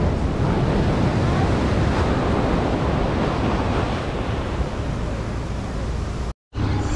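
Wind buffeting the microphone over the steady rush of ocean surf at a jetty. The sound cuts out completely for an instant near the end.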